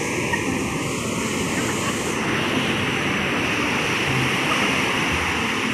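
Heavy surf: large waves breaking and washing through the shallows in a steady rush.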